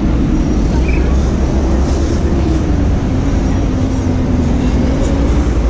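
City street traffic: a steady, loud rumble of vehicles, with one engine's drone that dips slightly in pitch partway through.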